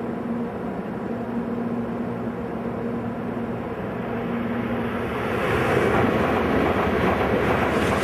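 N700 series Shinkansen approaching and passing through the station at speed without stopping: a rush of noise that rises from about five seconds in and grows loud as the train reaches the microphone near the end.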